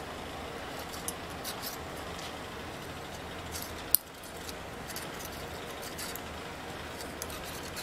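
Hand scraper scratching old grip residue off a metal bicycle handlebar end: a scattered run of short scrapes and ticks, with one sharp click about four seconds in.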